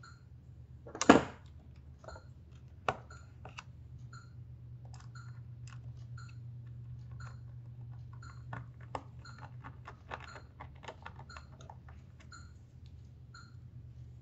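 Hands handling the circuit board, screws and plastic casing of an opened syringe pump: many small irregular clicks and taps of plastic and metal parts, with one sharp knock about a second in and another about three seconds in. A steady low hum runs underneath.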